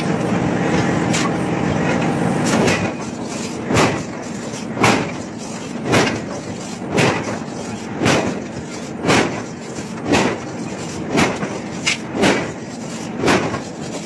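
Large open-die forging press working a hot steel cylinder: a steady machine hum, then from about four seconds in a regular pulse about once a second as the press strokes.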